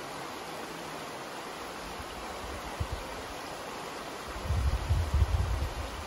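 Shallow creek water rushing steadily over a rocky bed. From a little past four seconds in, wind buffets the microphone with an uneven low rumble that is louder than the water.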